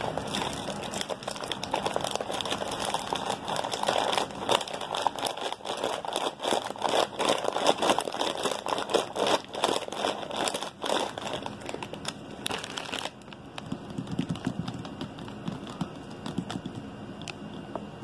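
A plastic snack bag with a shiny foil lining is crinkled and crumpled by hand close to the microphone, a dense run of crackles. The crinkling stops about two-thirds of the way through, and only quieter handling noise is left.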